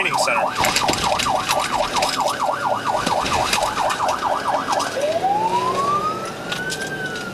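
Police car siren on a fast yelp, sweeping up and down several times a second. About five seconds in it switches to a slow wail that rises and then starts to fall.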